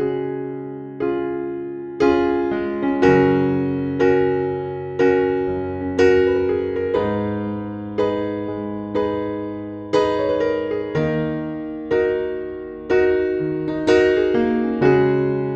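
Soft, slow electric piano music: gentle chords struck about once a second, each fading before the next.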